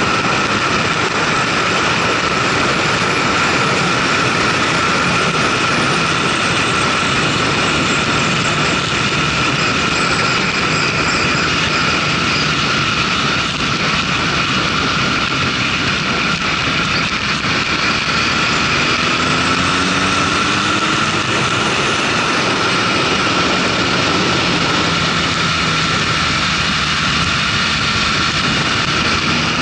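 Wind rushing over a motorcycle-mounted camera at road speed, with the motorcycle's engine running underneath and a steady whistle above it. The engine's pitch rises about two-thirds of the way through and again near the end.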